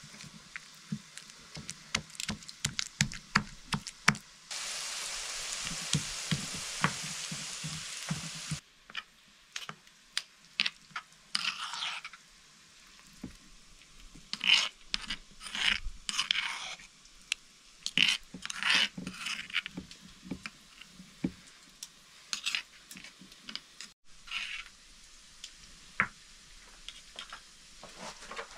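Stone pestle knocking and grinding in a stone mortar, a quick run of sharp taps, then a spoon scraping the paste from the mortar into a metal bowl with scattered knocks and scrapes. A steady hiss runs for about four seconds, starting and stopping suddenly.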